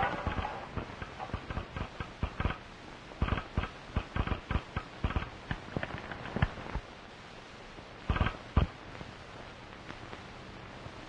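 Footsteps and scuffling of men on rocky ground: irregular knocks and scrapes for several seconds, then two louder thumps about eight seconds in.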